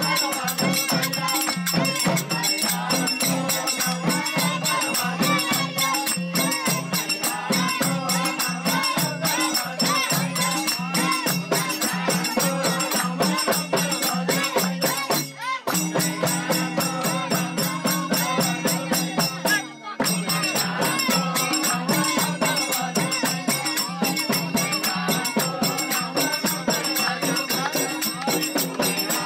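Devotional bhajan music: voices singing over a fast, busy jingling percussion rhythm and steady held low tones, with two brief breaks near the middle.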